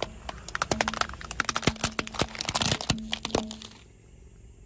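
Plastic toy dinosaurs cracking and crunching under a car tyre: a rapid run of sharp cracks and snaps that dies down about three and a half seconds in.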